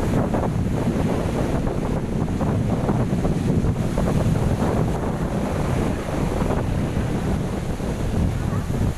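Strong wind blowing across the microphone over large waves breaking on the shore: a constant, gusting rush of noise, heaviest in the low end.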